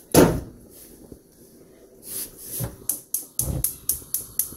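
A metal pot set down on a gas range grate with a clunk, then the burner's electric igniter clicking rapidly, about four to five clicks a second, as the gas burner is lit.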